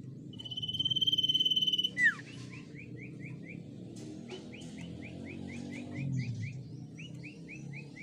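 Common iora singing: a long, steady high whistle for about a second and a half, a sharp falling note, then runs of quick rising chirps at about four a second, repeated in short bouts.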